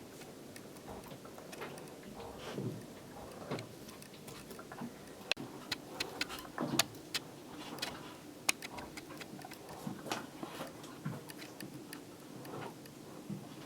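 Hands working on a laptop's screen hinges: scattered small plastic clicks and taps, with a cluster of sharper clicks in the middle and a few soft knocks, over a faint steady hum.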